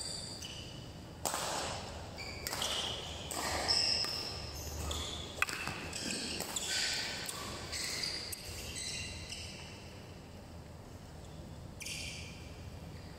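Badminton rally: shoes squeak again and again on the court mat as the players move, in short high squeaks, with footfalls and one sharp crack of a racket striking the shuttlecock about five seconds in.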